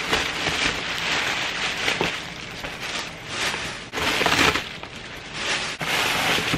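Tissue paper rustling and crinkling as it is pulled out of a gift bag, in uneven bursts.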